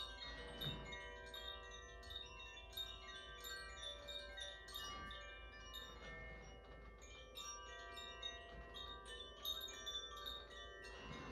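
Wind chimes ringing: many bell-like tones struck in quick, irregular succession and left to ring over one another.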